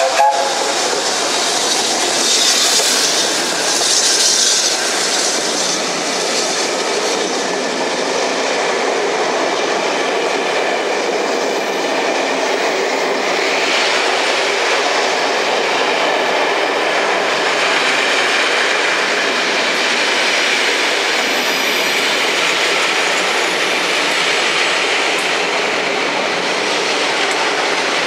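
Steam train running past on the rails, with bursts of steam hissing in the first few seconds, then a steady rolling of the carriages' wheels over the track.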